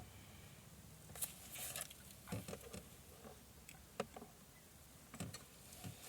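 Faint, scattered light clicks, taps and small scrapes of utensils and food being handled at an electric roaster pan, over a faint low hum.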